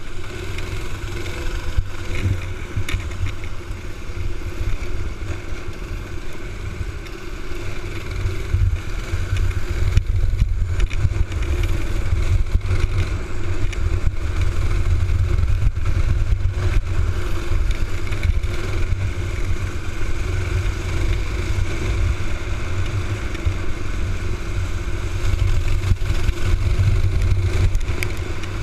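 Onboard sound of a Honda-engined box-stock racing kart running at racing speed, its engine note steady apart from a brief drop about ten seconds in, over a heavy low rumble of wind on the kart-mounted camera.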